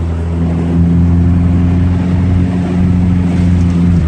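Ford Ranger pickup's engine running at a steady speed, heard from inside the cab.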